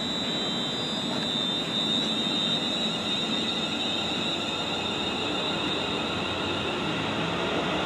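Siemens Desiro Class 350 electric multiple unit moving slowly past the platform. Its traction equipment gives a steady high whine over running noise, and the whine starts to rise in pitch near the end as the train gathers speed.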